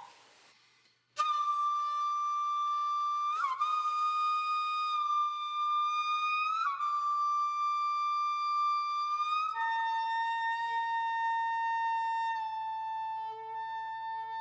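Slow melody of long held notes on a flute-like wind instrument: four notes, each starting with a slight upward slide, the last one lower and fading out. It starts about a second in, after a short gap.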